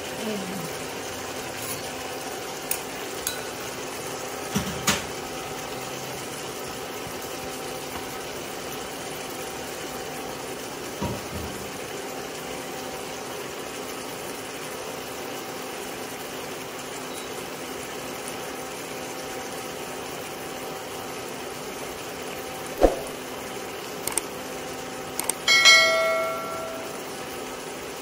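Bitter melon, meat broth and egg simmering in a wok, a steady soft bubbling hiss with a faint hum under it. A few light knocks come through it, and near the end a sharp click followed by a short ringing ding.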